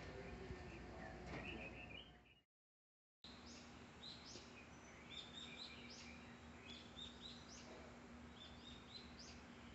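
Faint bird chirping: many short high calls, cut by a brief stretch of total silence about two and a half seconds in. A faint steady hum runs under the chirps after the gap.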